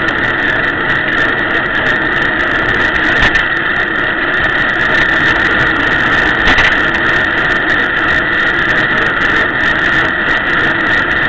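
Steady, loud wind and road noise from riding in traffic, picked up by a small action camera's microphone, with two brief bumps about three seconds and six and a half seconds in.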